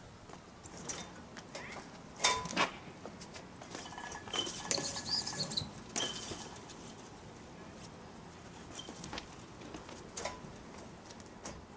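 Shoes striking and scuffing on concrete in scattered short knocks, the loudest pair about two seconds in, over steady outdoor background noise, with a few faint high chirps around the middle.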